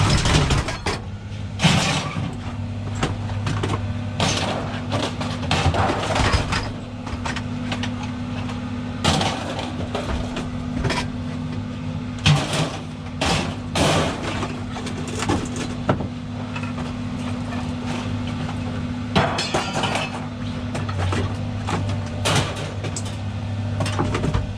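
A vehicle engine runs steadily under a string of irregular metallic clanks and crashes of scrap metal, some of them loud.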